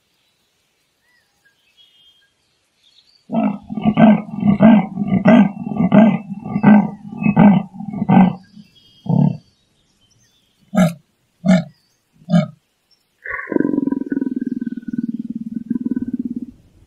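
Leopard giving its sawing call: after about three seconds of silence comes a run of about eight grunting calls, roughly one and a half a second, then a few more spaced-out ones. It ends in a longer low growl.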